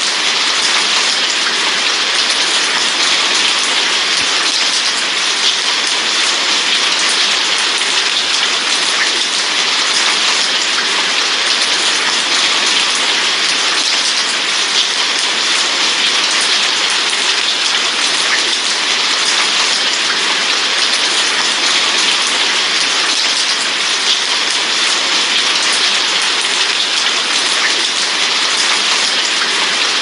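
Light rain falling steadily on a wet street: an even hiss of many drops, with a few single drop ticks standing out now and then.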